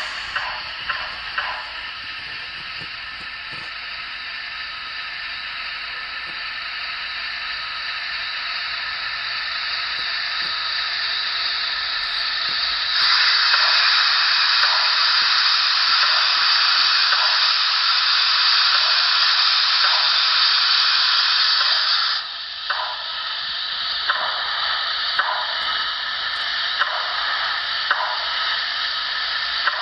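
Model Pennsylvania Railroad T-1 4-4-4-4 steam locomotive's sound: a steady steam hiss with soft, evenly spaced ticks. About thirteen seconds in a much louder hiss starts suddenly, and it cuts off about nine seconds later.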